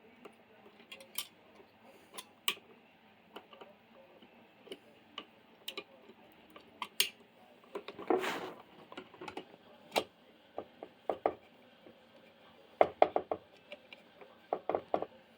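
Scattered light clicks and small metallic taps at irregular intervals from hand tools and copper wires being worked onto a wall light switch's screw terminals, with a short noisy scrape about eight seconds in and a quick run of clicks near the end.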